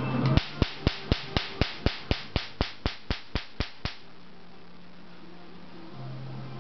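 A pulsed laser handpiece firing onto a black sheet: about fifteen sharp snapping clicks at a steady four a second, stopping about four seconds in, with a low hum remaining afterwards.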